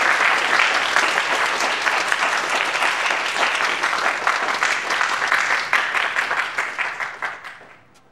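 A group of people applauding, many hands clapping together, dying away near the end.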